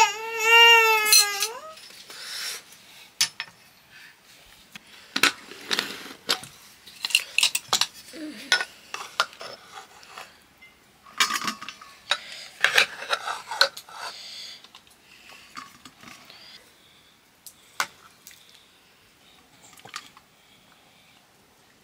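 Dishes and utensils clinking and knocking at irregular intervals, busiest in the middle. At the start a short high-pitched cry falls in pitch.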